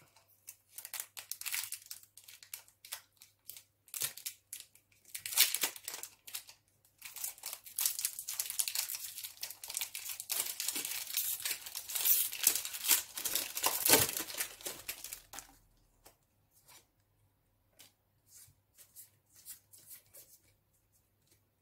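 A Pokémon trading card booster pack's foil wrapper being torn open and crinkled by hand, in irregular bursts of tearing and rustling. Near the end it drops to faint, scattered rustles as the cards come out.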